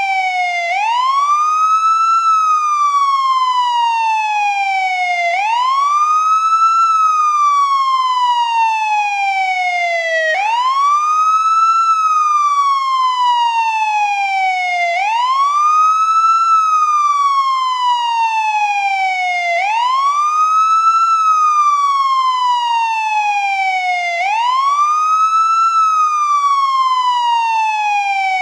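American police siren on its wail setting: one tone that climbs quickly, then slides slowly down, repeating about every five seconds.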